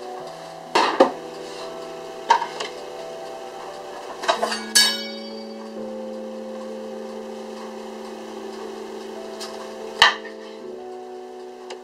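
Gentle background music with sustained notes, over a few sharp kitchen knocks: a knife on a wooden chopping board as a lemon is cut, the last knock about ten seconds in. One knock about five seconds in gives a short metallic ring.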